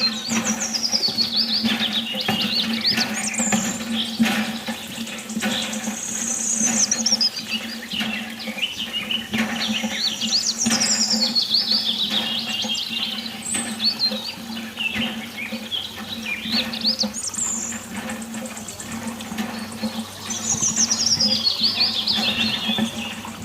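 Bird song, a run of quick high chirps falling in pitch, comes back every four to six seconds over a steady low hum in the background music.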